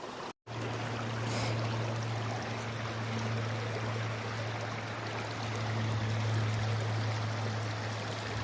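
Creek water running, an even steady noise, with a steady low hum underneath. The sound cuts out completely for a moment just under half a second in, then resumes.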